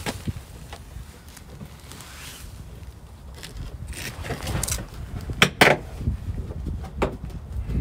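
Scattered plastic clicks and knocks as a van's fender liner and mud flap are pushed up and over a bracket in the wheel well by hand, the sharpest pair about five and a half seconds in, over a low rumble.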